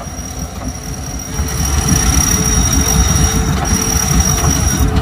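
Off-road 4WD vehicle working under power: a low engine rumble that gets louder about a second and a half in, with a steady high-pitched whine over it.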